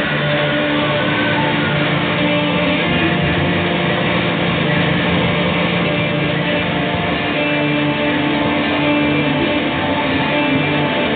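Sustained, droning experimental music: electric guitar layered with electronics and keyboard, many held tones shifting slowly, with no beat.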